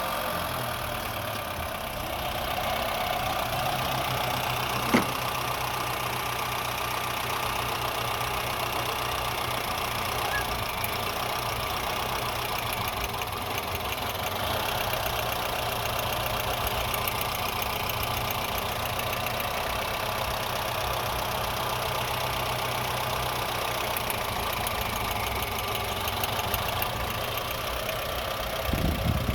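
Honda Fit's four-cylinder petrol engine idling with a misfire. A single sharp click comes about five seconds in, and the sound grows briefly louder near the end.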